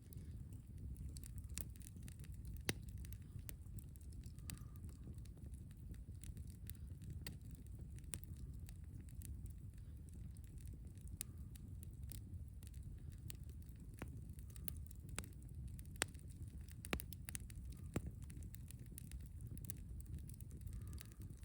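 Wood campfire burning: irregular sharp crackles and pops over a steady low rumble.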